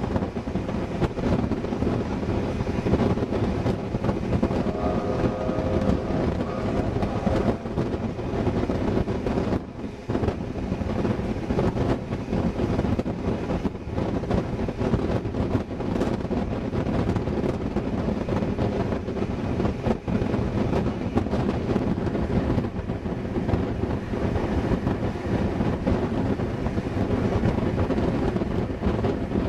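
Steam-hauled passenger train in motion, heard from an open carriage window: wind buffeting the microphone over the steady rumble of the carriage wheels on the track.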